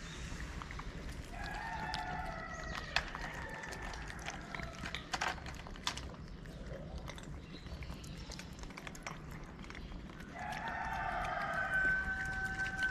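Cats chewing wet food from plastic trays close by, with scattered small clicks. A long drawn-out animal call sounds twice in the background, once just over a second in and again, louder and longer, near the end.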